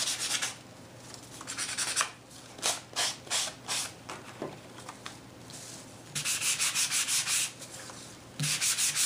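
Emery sanding block scraped along the edges of a cardstock card in quick back-and-forth strokes, coming in several short runs with pauses between them, distressing the paper edges.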